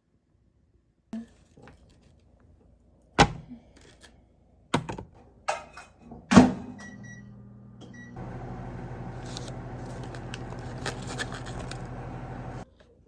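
Microwave oven: a few thunks and clatters as its door is shut and it is handled, faint beeps as it is set, then it runs with a steady hum for about four seconds before cutting off abruptly.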